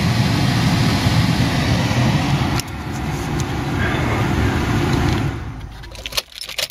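Acura RSX cabin blower fan running with a steady rush of air, working again with a new thermal cutoff fitted. About two and a half seconds in it drops to a lower level, then winds down and stops near the end, followed by a few light clicks.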